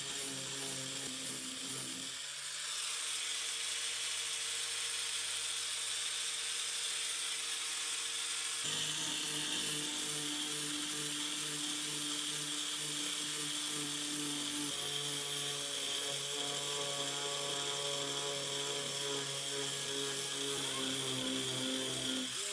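Electric sander running steadily on the fiberglass around the old furnace vent holes, its pitch stepping to a new level a few times as the load on it changes.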